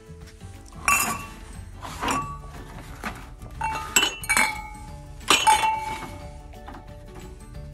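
Glass and ceramic dishware clinking as it is handled and moved on a shelf: about six sharp clinks, a few of them ringing briefly, before they stop near the end. Faint background music runs underneath.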